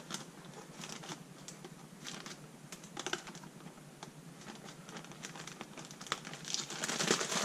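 A plastic bag full of powder crinkling and rustling as it is twisted shut and a twist tie wound onto its neck. The sound is a scatter of small clicks that thickens into denser crinkling near the end.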